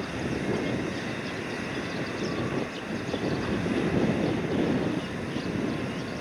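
Steady low mechanical drone of a cargo ship's deck crane and machinery running during unloading, rising and falling slightly in strength.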